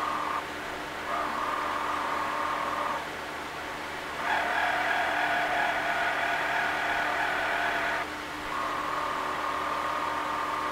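Motors of the Excalibur Phantom Force chess board's under-board carriage whining as it moves pieces across the board to set itself up. A steady whine breaks off briefly about half a second in, turns louder and higher from about four to eight seconds in, then settles back to the lower whine.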